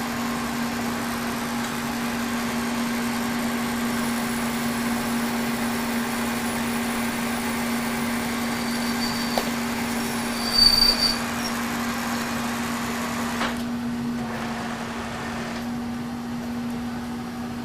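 K&T horizontal mill, converted to run as a lathe, running steadily with a constant hum while taking a light finishing cut on a chuck mounting plate. A hiss over the hum drops away about thirteen seconds in while the machine keeps running.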